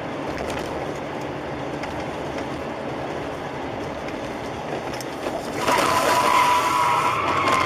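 Steady road and engine noise of a moving car, heard from inside. About five and a half seconds in, a louder high-pitched wavering tone joins it and holds.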